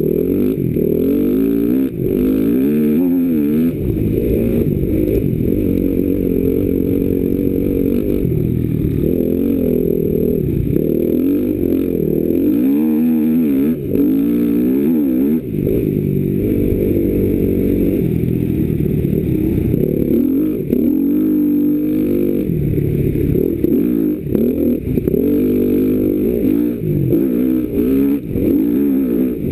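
Enduro motorcycle engine heard close from on board, revving up and dropping back again and again as the bike is ridden hard off-road.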